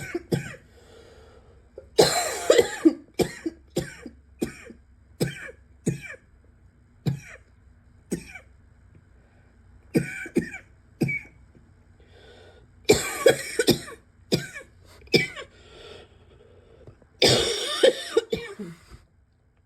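A harsh, barking cough that the owner calls getting real bad. It comes in fits of several quick coughs, the longest about two seconds in, around thirteen seconds and near the end, with single coughs between.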